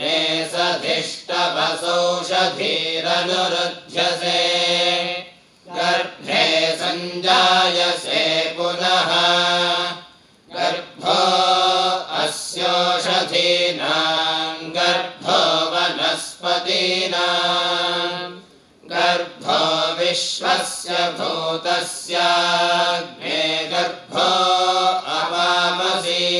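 A group of men chanting Vedic mantras together, phrase by phrase, with short breaths between phrases. There are longer pauses about ten seconds in and again near eighteen seconds.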